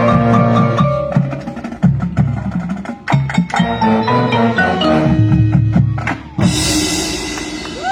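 Marching band playing with percussion, ending in a loud full-band closing chord about six and a half seconds in that fades out.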